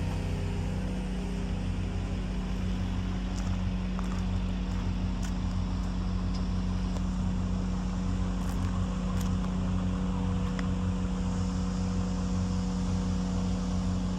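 A 2004 Vermeer BC1800XL wood chipper's engine running at a steady, unchanging speed, with a low hum.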